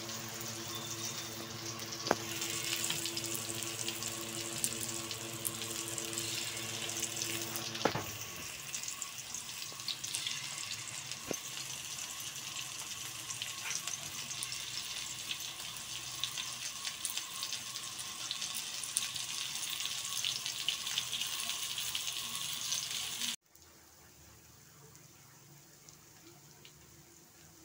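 Batter-coated pointed gourd pieces sizzling in oil on a hot iron tawa, a steady crackling hiss. Near the end it drops abruptly to a much fainter sizzle.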